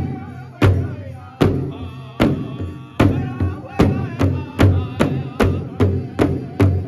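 Powwow drum group striking a large shared drum in unison with drumsticks and singing in high voices. The steady beat quickens to about twice as fast roughly three seconds in.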